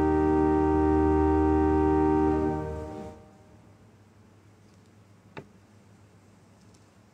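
Organ holding a sustained chord with deep bass, released about three seconds in and fading away over about a second. Then quiet room tone with one faint click.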